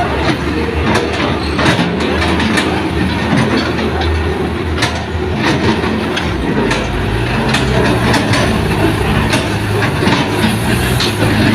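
Heavy diesel machinery running at a work site: an excavator working, with irregular metallic clanks and knocks from its tracks and bucket. A second, lower engine note, typical of a dump truck, joins about halfway through.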